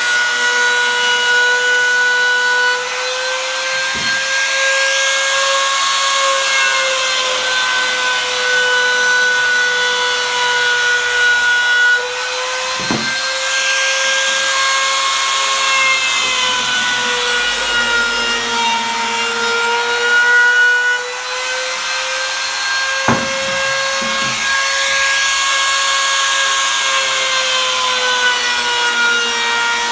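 Compact trim router running with a steady high whine as its roman ogee bit rounds over the corners of angelim hardwood legs. The pitch sags and recovers over three long passes along the wood, with a sharp knock once in each pass.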